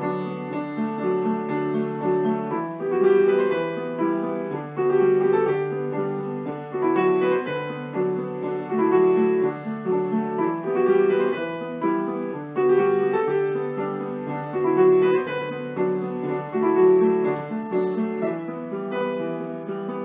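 Piano music playing a rhythmic pattern of notes and chords.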